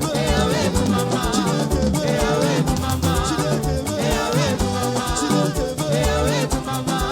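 Upbeat live praise-band music with a steady beat, shaker-like percussion and a melody line gliding over it.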